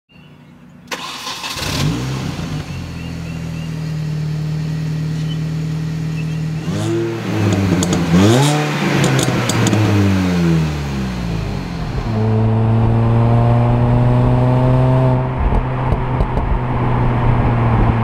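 The supercharged 1.6-litre four-cylinder of a 2005 Mini Cooper S (R53) starts about a second in and settles into steady running. Around the middle it is revved up and let fall back, then it runs steadily at a higher, even note.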